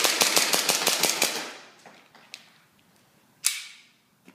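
WE Hi-Capa 4.3 Compact Elite gas blowback airsoft pistol firing on green gas: a fast string of shots, about seven a second, with the metal slide cycling on each, stopping a little over a second in, then one more single shot about three and a half seconds in.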